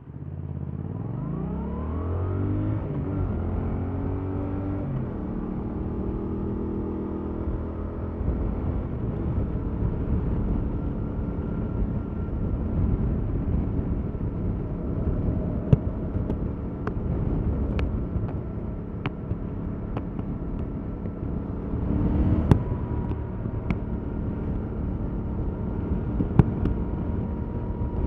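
Stock Yamaha MT-07's 689 cc parallel-twin engine pulling away hard, its pitch climbing and dropping back through several quick upshifts, then cruising steadily with wind and road noise. It accelerates again near the end, with short sharp ticks now and then.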